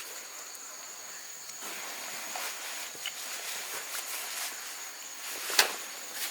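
Steady high insect drone in the forest, with small scattered knocks and one sharp knock about five and a half seconds in.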